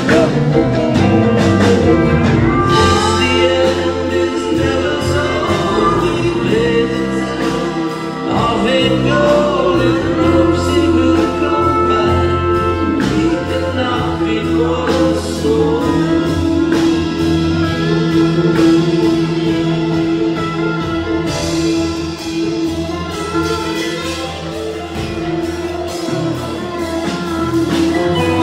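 Live band playing a song: pedal steel guitar with gliding notes over strummed acoustic guitar, electric guitar and cymbals keeping time, with a sung lead vocal.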